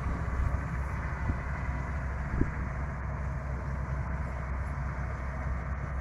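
Dhiman combine harvester running while it harvests, a steady low engine and threshing-machinery drone. A short knock about two and a half seconds in.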